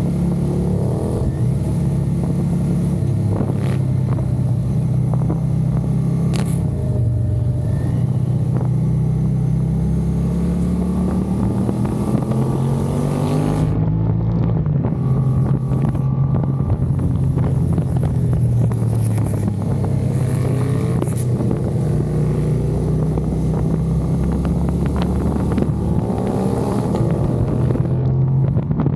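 Engines running steadily, with the pitch rising a couple of times as they rev up and accelerate away.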